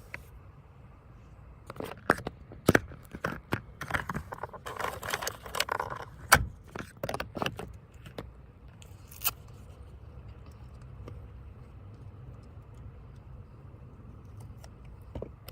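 Handling noise from working tape and gauze wrap by hand: a run of sharp clicks and taps with a stretch of rustling for about six seconds, then one more click. A faint low hum sits underneath.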